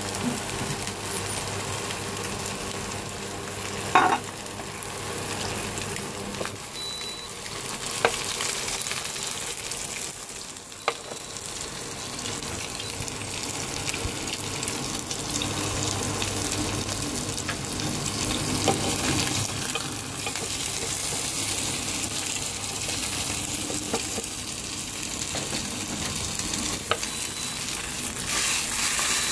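Oyster-and-shrimp egg and starch batter frying in oil in a nonstick pan: a steady sizzle, with extra oil just added to crisp it. A few sharp knocks against the pan, the loudest about four seconds in.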